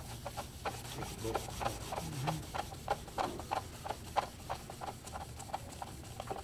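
Damp cloth rubbed briskly back and forth over sanded paint on a plastic model panel, polishing it with toothpaste: an even run of short scrubbing strokes, several a second.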